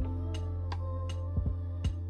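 Instrumental background beat: steady bass and sustained notes under a crisp ticking percussion hit about three times a second.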